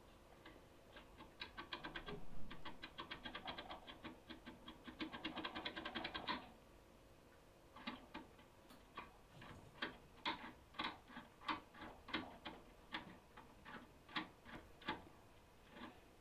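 Self-impressioning perfo lockpicking tool being worked in a Securemme K22 lock, making small clicks. A fast run of clicks lasts about five seconds, then after a short pause come slower, separate clicks, about one or two a second.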